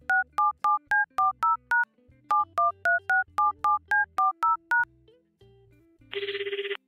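Touch-tone telephone keypad dialing: a quick run of two-tone beeps, one per key press, at about three to four a second, with a short pause partway. About six seconds in, a short trilling ring starts as the call goes through.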